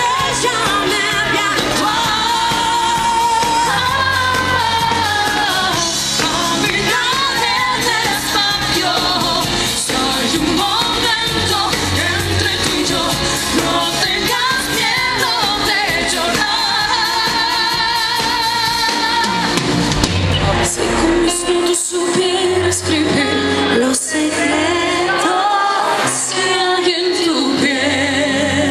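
Two women singing a pop duet live through microphones over an amplified band with drums and keyboards. About two-thirds of the way through the low backing thins out while the voices carry on.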